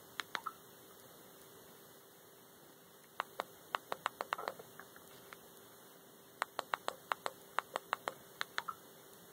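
Quick runs of sharp clicks from scrolling through a Boxee media player's menus, a few near the start, about eight a few seconds in and about a dozen near the end, some runs ending in a short soft swish, over a faint steady hum.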